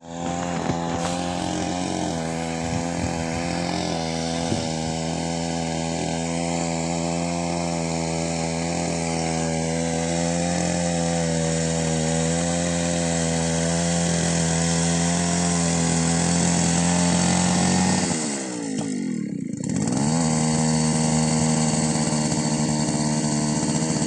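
Small engine of a walk-behind paddy power weeder running steadily at high revs. About 18 seconds in, its pitch dips sharply and climbs back up, then it runs steadily again.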